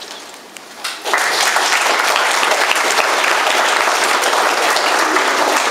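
Audience applauding, starting suddenly about a second in and then continuing loud and steady.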